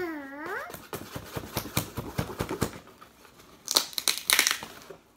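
A blade cutting through packing tape on a cardboard shipping box: a quick run of scratchy scraping strokes, then two loud rips as the tape and flaps are torn open near the end. A short voice sound that dips and rises in pitch at the very start.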